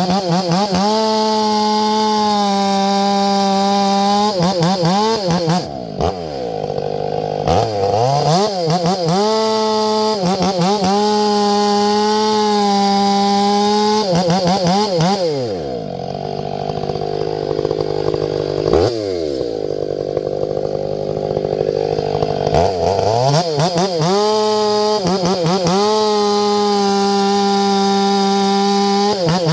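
Ported Stihl MS500i fuel-injected two-stroke chainsaw held at high, steady revs with quick throttle blips. Twice the pitch drops and turns rougher as the chain cuts through wood: briefly about a fifth of the way in, and for several seconds in the middle.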